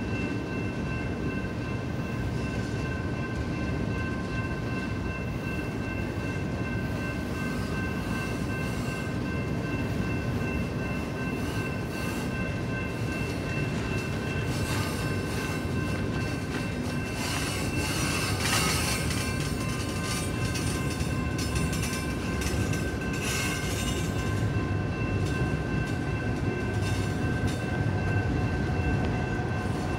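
BNSF double-stack container well cars rolling past with a steady rumble of wheels on rail, and a thin, steady, high-pitched wheel squeal over it. Bursts of clicking and rattling come and go midway through.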